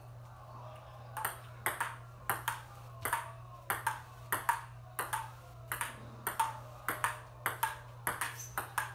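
Table tennis ball in a rally, a steady run of sharp clicks as it strikes the paddles and bounces on the table, about two a second.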